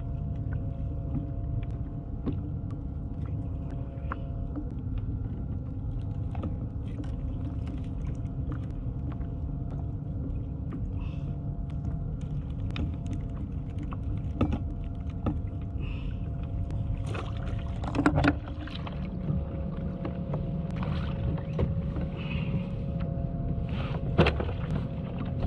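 Steady low rumble of wind and water around a plastic fishing kayak, with a faint steady hum underneath. Scattered clicks and knocks come from a caught grouper and fishing gear being handled on the deck, with two louder knocks in the last third.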